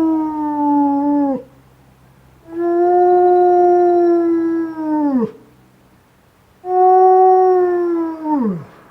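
A single wolf howling: three long, steady howls, the first already under way, each sliding down in pitch as it ends.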